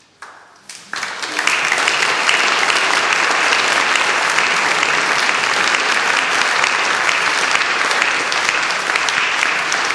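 Audience applauding at the end of a performance: a few scattered first claps, then full, steady applause from about a second in.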